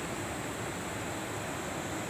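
Steady rushing of flowing river water: an even hiss with no distinct splashes or knocks.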